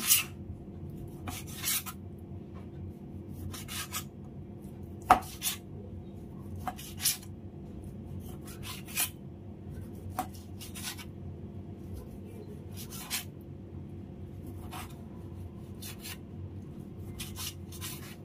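A chef's knife slicing smoked duck breast thinly on a cutting board: short scraping strokes every second or two as the blade cuts through the meat and meets the board, with one sharper tap about five seconds in.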